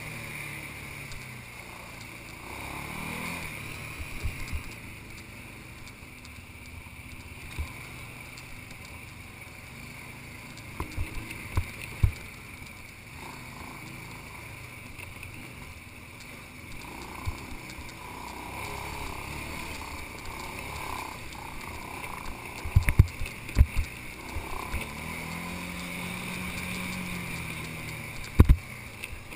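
ATV engine running as the quad rides a rough dirt trail, its pitch rising and falling with the throttle. Clusters of sharp knocks as the machine jolts over bumps are heard, the loudest a little past the middle and near the end.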